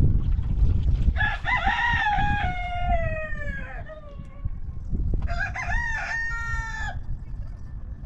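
Rooster crowing twice: a long crow starting about a second in that falls away at its end, then a shorter crow past the halfway point.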